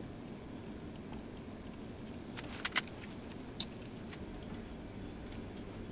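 Small metallic clicks and clinks as a stepper motor and its shaft coupler are handled and seated in an aluminium mounting bracket: two quick clicks near the middle, then one more about a second later, over a steady low room hum.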